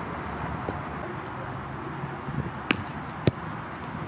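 Steady outdoor background noise with wind on the microphone, broken by two sharp knocks about half a second apart in the second half.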